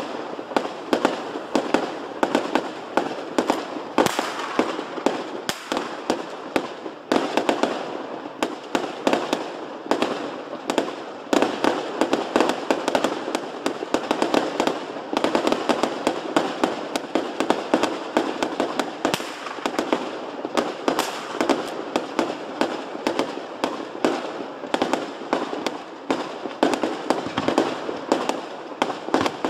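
Fireworks display being fired: a continuous run of bangs and crackling pops from comets and bursting stars, many per second with no pause.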